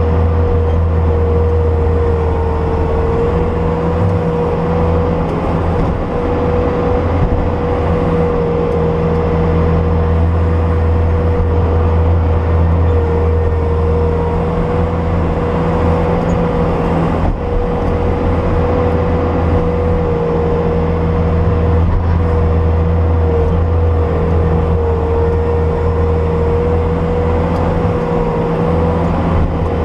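Bobcat S250 skid steer's diesel engine running steadily as the machine digs through deep snow with its bucket: a low drone with a steady whine held at nearly one pitch above it.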